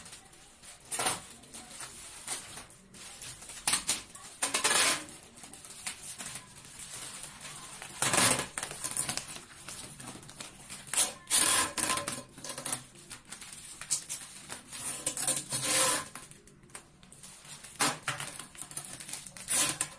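Adhesive tape pulled off its roll in short rips, with clear plastic wrap crinkling, as wrapped floral foam is taped to a metal ring. The rips come irregularly, a dozen or so, several of them loud.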